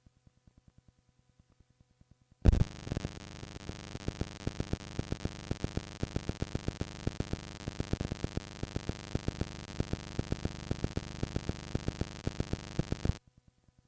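Cassette tape playback: a loud click about two and a half seconds in, then steady tape hiss with sharp clicks about four times a second. It cuts off abruptly near the end.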